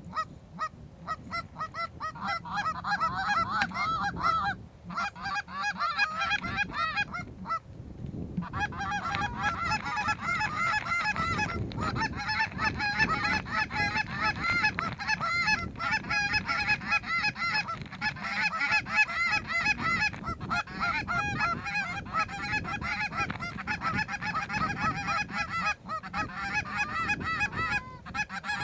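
Canada geese honking, many calls overlapping in a steady chorus from a flock, with short lulls about five and seven seconds in.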